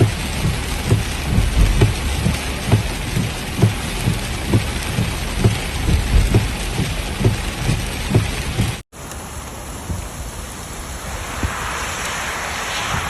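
Heavy rain, with large drops thudding close to the microphone two or three times a second. A cut about nine seconds in switches to a quieter, smoother rush of rain and wind.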